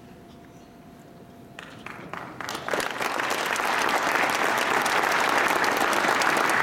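Audience applause: a few scattered claps start about a second and a half in, then swell within a second or so into steady full applause.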